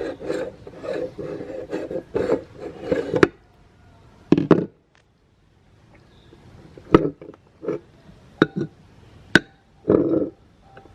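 Meat grinder grinding a lemon: irregular rasping, crunching bursts, then a short pause followed by scattered sharp clicks and shorter grinding bursts.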